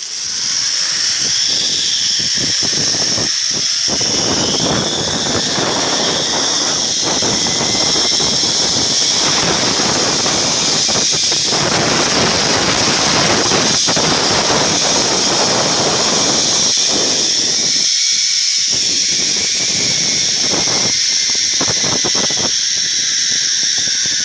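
Zip-line trolley pulleys running along a steel cable: a steady high-pitched whine, with wind noise on the microphone that is heaviest in the middle.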